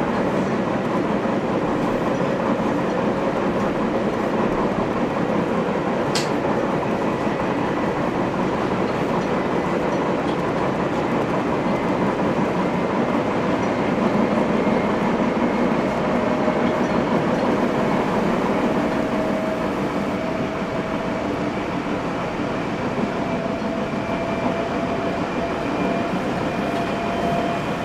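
Nagoya Municipal Subway 3050 series train running between stations, heard from inside the car: a steady rolling rumble of wheels and motors with faint steady tones. There is a single sharp click about six seconds in, and a motor tone rises slightly in pitch near the end.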